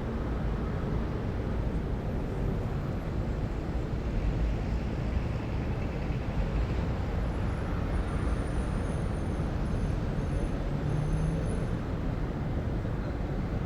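City ambience: a steady low rumble of distant road traffic, with faint high squeaks about halfway through.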